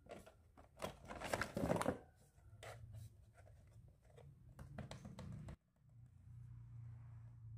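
Hard plastic toys clattering and scraping against each other as a Hello Kitty-shaped plastic case is pulled from a box of toys, loudest in the first two seconds. After that come softer clicks and rubbing of fingers on the case's plastic shell.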